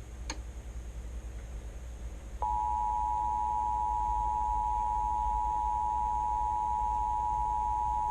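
Emergency Alert System attention tone: a loud, steady electronic tone that switches on abruptly about two and a half seconds in, after a faint hum and a soft click. It is the alarm that signals a warning message is about to follow.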